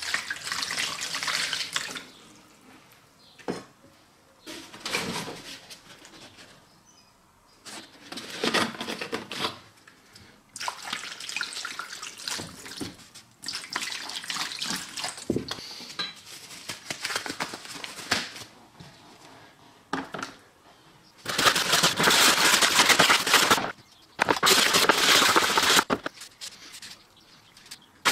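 Water, then white wine vinegar from a plastic jug, poured in several separate splashing pours into a plastic tray, mixing a water-and-vinegar bath for removing light rust. Near the end come two longer, louder spells of sloshing and splashing in the liquid.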